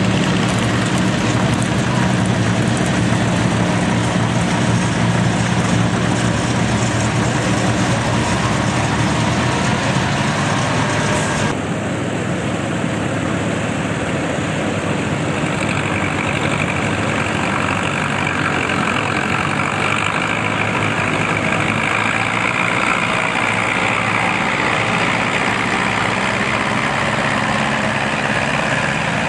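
Vintage farm tractor engine running steadily under load while pulling a weight-transfer sled. About eleven and a half seconds in, the sound cuts abruptly to a second small vintage tractor engine pulling the sled.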